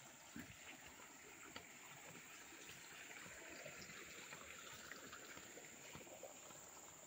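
Near silence: faint footsteps on leaf litter and twigs, a few soft crackles, over a thin steady high drone of insects.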